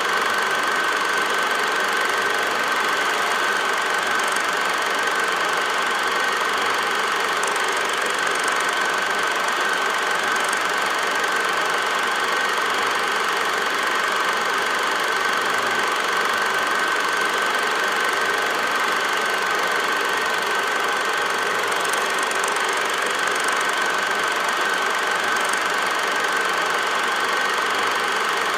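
Steady whirring hum of an 8mm film projector running, with an unchanging high tone.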